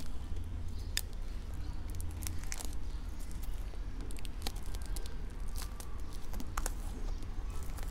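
Plastic shrink-wrap on a card deck being cut with scissors and peeled off by hand, crinkling and tearing in scattered, irregular crackles, over a steady low hum.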